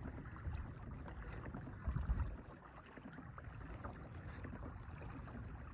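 Faint water lapping and trickling against a Hobie kayak's hull as it moves over calm, lightly rippled water, with one brief louder bump about two seconds in.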